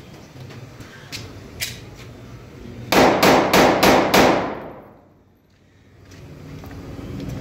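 Silver handmade pistol fired five times in quick succession, about four shots a second, the reports ringing off the surrounding brick walls and dying away about a second after the last shot.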